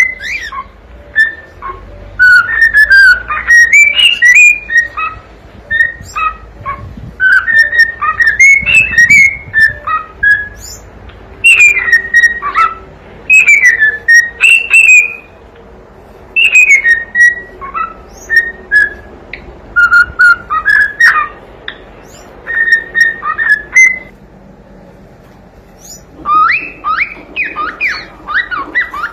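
Cockatiel whistling a song: phrases of clear notes that glide up and down, with short pauses between phrases and a quicker run of rising notes near the end.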